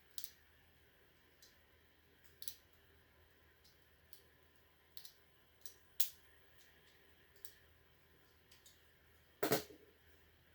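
Scattered light clicks and taps from handling and cutting apart a taped wiring harness, with a louder knock about nine and a half seconds in.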